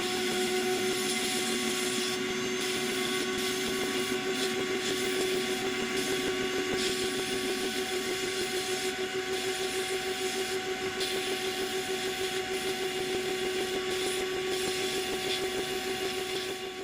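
An electric power tool running at a steady speed, with a steady hum and a scratchy hiss over it that varies a little in level.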